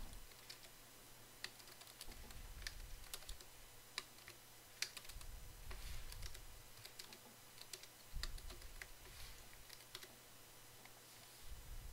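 Faint typing on a computer keyboard: scattered, irregular keystrokes with short pauses between them.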